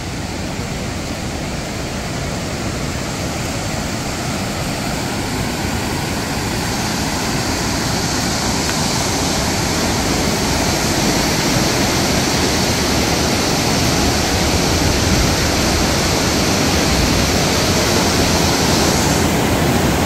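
Fast river running over rocks in white-water rapids, a steady rushing that grows louder and brighter as it draws closer.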